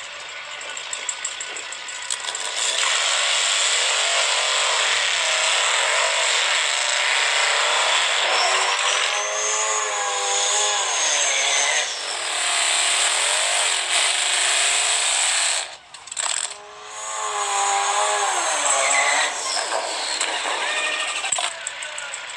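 Drag-racing sportbike and car engines revving hard and accelerating down the strip, their pitch climbing and falling as they rev and shift. There is a brief break about sixteen seconds in.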